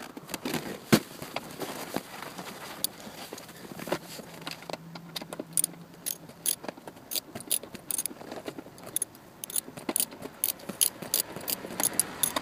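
Hand ratchet clicking in quick, uneven runs as a 10 mm screw is tightened. The clicks come several to the second and grow busier after about four seconds in.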